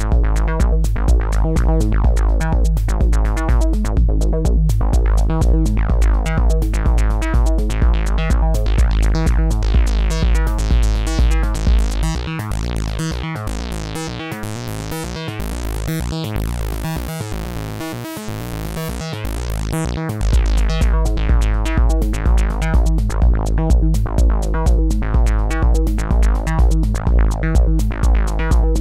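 Sound Object #5 synthesizer playing a fast, repeating techno bassline while its filter is turned by hand. A little under halfway through, the deepest bass drops out for about eight seconds and the sound thins, then the full low end comes back.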